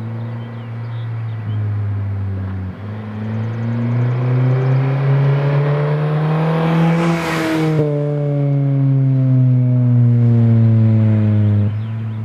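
2005 Acura TSX's 2.4-litre four-cylinder engine through a Skunk2 cat-back exhaust: the engine note climbs steadily for several seconds, peaks with a brief rushing hiss, then falls away and drops suddenly back to a lower steady note near the end.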